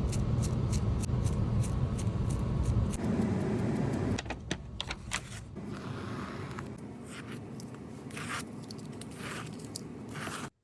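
Paintbrush working on canvas: a run of rapid, even taps over the first few seconds, then scattered scrubbing strokes and taps that cut off suddenly near the end.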